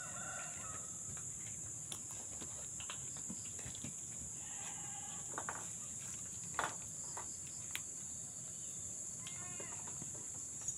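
Steady high-pitched drone of insects, with a few short animal calls near the start, midway and near the end, and a sharp click about two-thirds of the way through.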